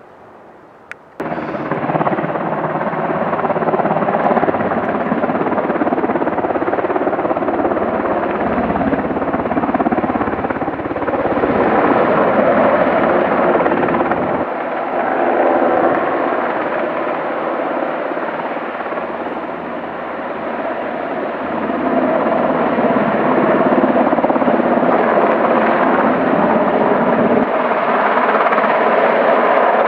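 UH-60 Black Hawk helicopter hovering low over water with its firefighting bucket slung below, rotor and turbine noise loud and steady. The sound cuts in suddenly about a second in.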